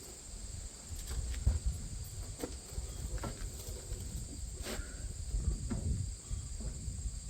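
Crickets chirping steadily in the background, with scattered clicks and knocks of metal parts and tools being handled.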